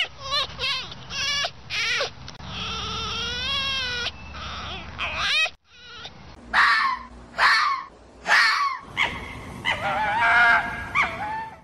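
Red fox calling: a quick run of short, wavering yelps, then a long quavering cry. After a brief gap come three loud falling calls about a second apart and a final wavering call.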